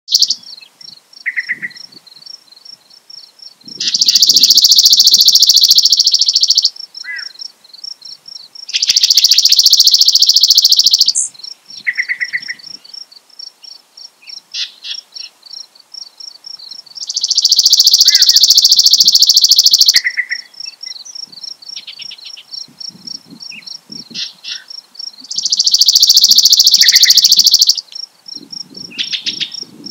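Chipping sparrow singing four times, each song a dry, rapid, high trill lasting about three seconds. Between the songs a yellow-breasted chat keeps calling with short notes, over a steady fast high pulsing.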